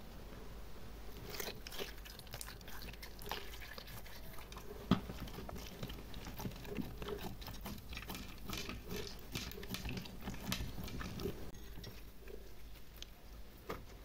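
Clear glitter slime with small plastic charms in it being squeezed and kneaded by hand: a run of sticky clicks and pops, busiest from about a second in until near the end, with one sharper pop around five seconds in.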